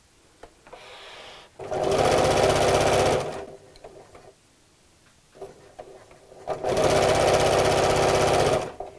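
Electric sewing machine stitching in two short runs of about two seconds each, the first starting a second and a half in and the second near the end, with a pause between them.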